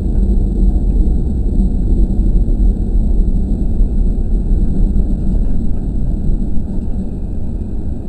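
KiHa 40 diesel railcar under way, heard from inside the cab: a steady low rumble of its diesel engine and wheels on the track.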